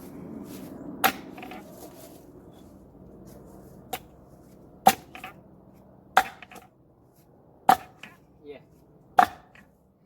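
Axe blows splitting a round of water oak: about five sharp, heavy strikes, one to one and a half seconds apart, plus one lighter tap. The wood is stringy and hangs together after splitting.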